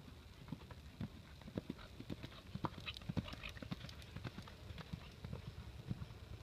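Hoofbeats of a ridden Quarter Horse gelding moving at a steady gait over a soft dirt arena, a run of dull thuds that grows loudest as the horse passes close by around the middle and then fades as it moves away.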